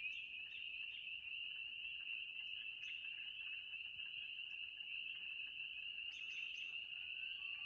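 Distant chorus of spring peepers, many high peeps overlapping into one steady, shrill ring.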